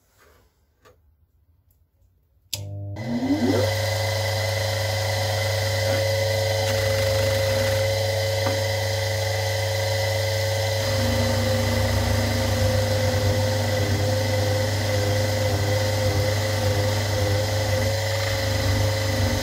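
Electric motor driving a felt polishing wheel, switched on about two and a half seconds in: its whine rises for about a second as it spins up, then it runs steadily with a low mains hum. From about halfway the tone wavers and deepens slightly as the steel chisel blade is pressed against the felt wheel with polishing paste.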